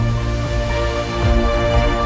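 Background music: sustained synth chords over a steady low bass.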